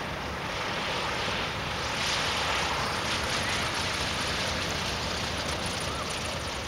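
Cessna 152's four-cylinder Lycoming engine and propeller as the light plane passes low along the runway for landing. The sound swells about two seconds in and holds steady.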